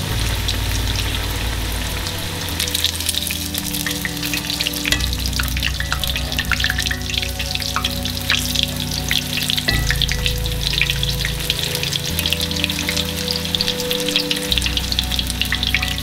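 Breaded chicken cutlets (chicken katsu) shallow-frying in hot oil in a cast-iron skillet: a steady crackling sizzle dotted with sharp pops of spattering oil.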